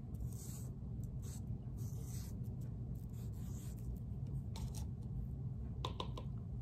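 Cotton swab wet with baking-soda ink brushing across paper in soft strokes while a message is written, over a steady low hum. A few light taps near the end as the swab is dipped back into the plastic cup of ink.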